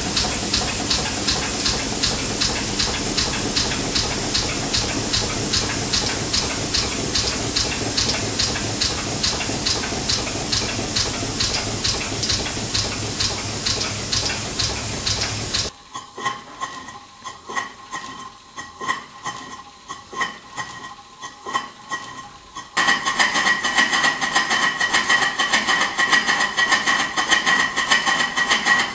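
1923 R. Wolf steam engine running, with a steady steam hiss and even, rhythmic beats. About 16 seconds in the sound drops suddenly to quieter rhythmic ticking of the moving valve gear. About 23 seconds in it jumps to a louder, rhythmic mechanical clatter with a steady ringing tone.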